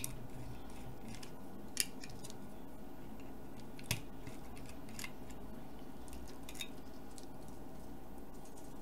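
Steady faint hiss and hum from the radio kit's output played through an amplifier, with no station coming through clearly. A few sharp clicks break it, about four spread over the middle, as a screwdriver works on the circuit board.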